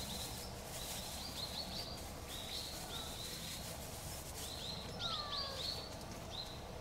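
Small birds calling in quick groups of short, high chirps, with a lower falling whistle about three seconds in and again around five seconds in, over a steady low background hum.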